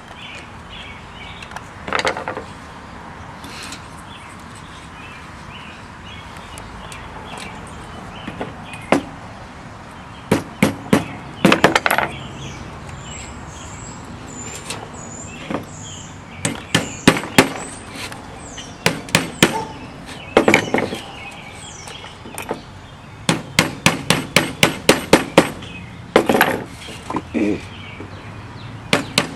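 Light sharp taps on an aluminium window screen frame, singly and in quick runs of several strikes about three a second, as the re-used metal spline is knocked into its channel to hold new metal screening.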